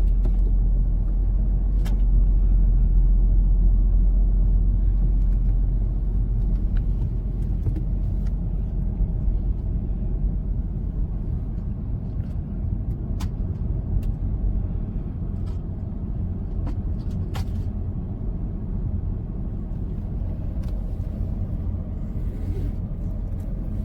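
Road noise inside a moving car's cabin: a steady low rumble with a few faint clicks, easing slightly after about six seconds and cutting off suddenly at the end.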